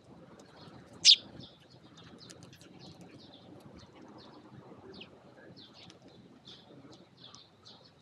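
A flock of Eurasian tree sparrows chirping in many short, high notes while they feed, with one loud chirp close by about a second in.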